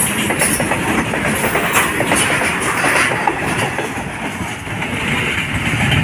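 Freight train's covered wagons rolling past close by, the wheels clattering over the rail joints in a steady, dense rumble that eases a little once the last wagon has gone by.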